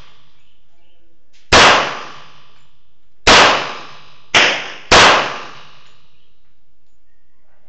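Taurus PT945 .45 ACP pistol fired four times: a shot about a second and a half in, another a couple of seconds later, then two quick shots about half a second apart, each followed by a brief echo.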